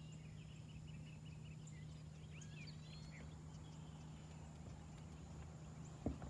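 Faint wild birdsong: scattered chirps and calls, with a quick run of repeated chips early on, over a steady low background hum. A single sharp click comes just before the end.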